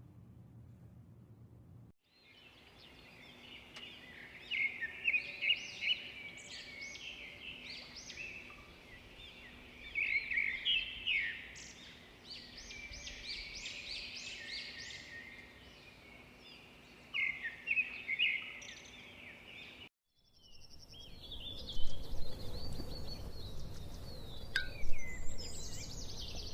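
Birds chirping in many short, quick, overlapping calls. The sound breaks off briefly about twenty seconds in, then the chirping goes on over a low rumbling noise.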